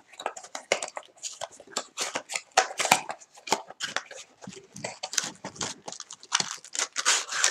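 Cardboard Bowman's Best trading-card boxes being handled and opened, an irregular run of clicks, taps and papery rustles.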